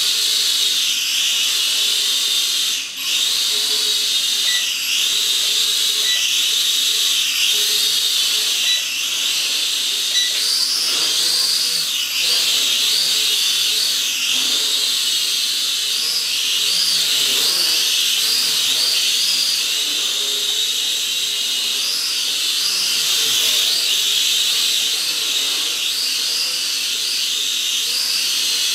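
SKRC Q16 toy quadcopter's motors and propellers whining in flight, a high-pitched whine that wavers up and down in pitch the whole time. It drops out briefly about three seconds in.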